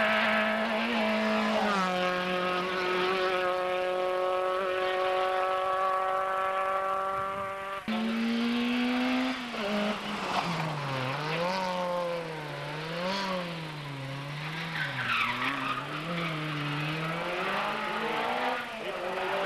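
Talbot Samba Rallye rally car engine held at high, steady revs as it approaches, with a small drop in pitch about two seconds in. After a sudden change about eight seconds in, the engine note rises and falls about once a second as the car is driven hard through corners.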